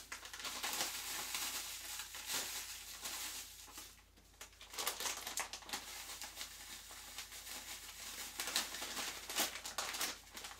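Light brown soft sugar poured from a plastic bag into a steel measuring cup, with the bag crinkling and rustling throughout and a brief lull about four seconds in.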